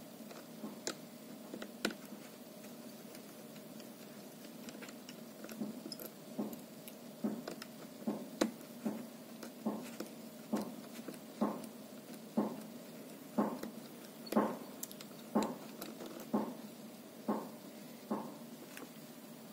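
Precision screwdriver turning a screw in a Dell Precision 5520 laptop display hinge: a light click about once a second as it is turned, over a faint steady hum.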